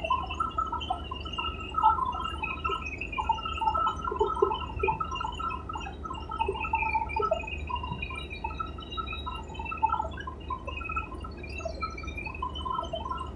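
Helicopter noise inside the cabin: a steady low drone with warbling, garbled tones above it.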